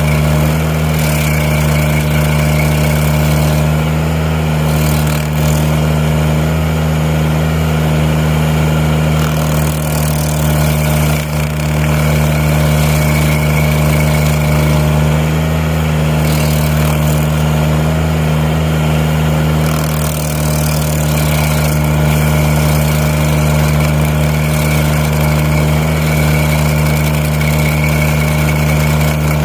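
Tobroco Giant SK252 mini loader's engine running steadily under load, driving a hydraulic Klou stump grinder attachment, with a high whine that comes and goes several times.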